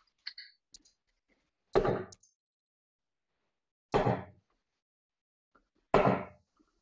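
Three steel-tip darts thudding one after another into a bristle dartboard, about two seconds apart.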